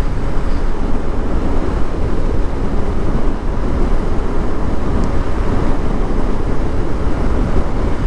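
Motorcycle riding at road speed: a steady rush of wind and road noise with the engine running underneath, picked up by a helmet-mounted external microphone.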